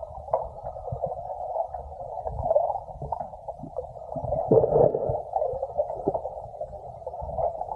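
Muffled underwater sound picked up through an action camera's waterproof housing: a steady dull rush of water with irregular low knocks and swells as the swimmer moves.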